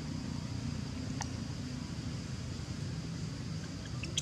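Outdoor background noise: a steady low rumble with a faint high hiss, and a single sharp click about a second in.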